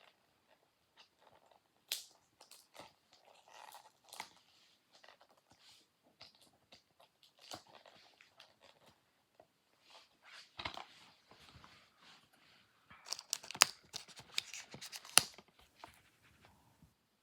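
Plastic shrink-wrap being torn and peeled off a DVD case by hand: scattered crinkling and crackling, with a denser run of sharp, louder crackles near the end.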